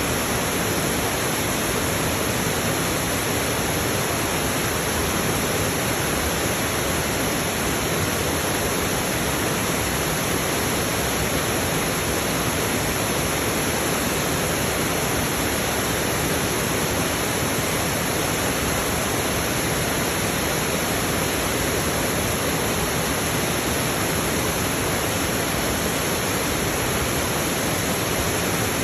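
River water rushing steadily, an even, unbroken wash of running water.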